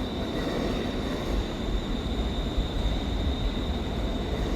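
ScotRail Class 380 electric multiple unit running into the platform as it arrives, a steady low rumble.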